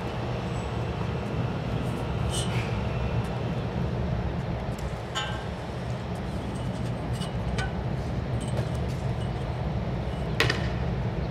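Steady street ambience with a low rumble of road traffic, and a few sharp light clinks about two, five and ten seconds in.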